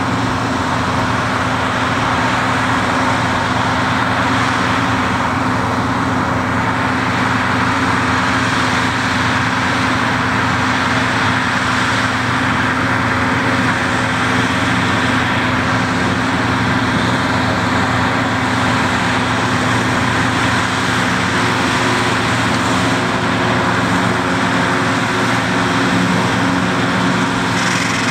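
White 195 tractor's diesel engine running steadily under load, powering a New Holland FP230 pull-type forage harvester as it chops alfalfa and blows it into a forage wagon. The engine and harvester make one continuous sound.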